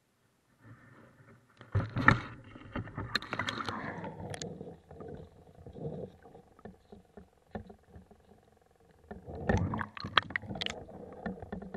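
River water splashing and sloshing around a camera dipped in and lifted out of the water, with knocks from handling. It is loudest about two seconds in and again near the end, with scattered clicks between.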